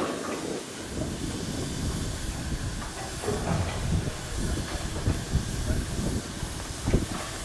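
Steam locomotive at rest, hissing steam steadily, with irregular low rumbling and a few thumps underneath; the strongest thump comes near the end.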